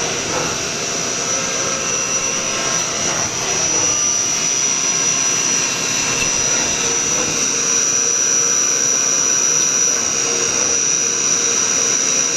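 Haas VF-9 vertical machining center milling an eighth-inch cut with the coolant shut off: the spindle and cutter run steadily with a constant high-pitched whine over the machine's running noise, a little louder from about three and a half seconds in.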